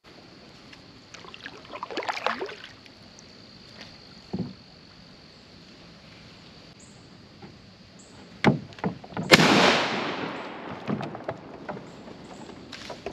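A small boat being paddled: scattered knocks of the paddle against the hull and water splashing. The loudest is a sharp knock about nine seconds in, followed by a splash lasting about a second.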